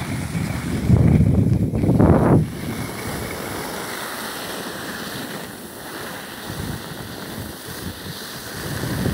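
Wind rushing over the microphone of a phone carried by a moving skier, with a loud low buffeting about one to two and a half seconds in, then a steady rush with the hiss of skis sliding over groomed snow.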